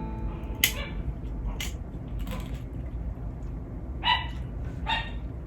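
Pet dogs barking at each other in the background, two short barks about four and five seconds in. A few sharp clicks come before them, the loudest about half a second in.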